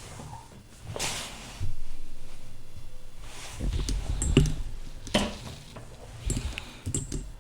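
Handling noise of an Action Army AAP-01 plastic gas pistol and its magazine: scattered knocks and clicks as the pieces are moved and set down, over a low rumble that starts about a second and a half in.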